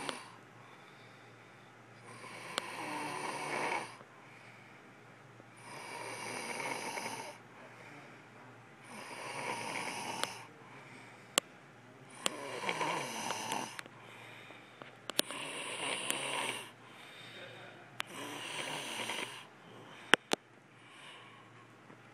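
A sleeping person snoring: a rasping snore about every three seconds, each lasting a second or so, with a few sharp clicks in between in the second half.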